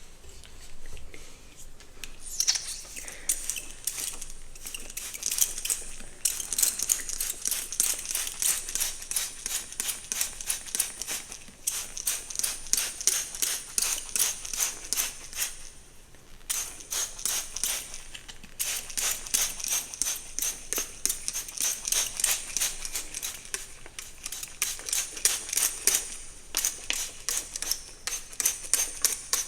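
A hairbrush stroking quickly through hair, close to the microphone: a crisp, bristly swish about three times a second, with a couple of short pauses.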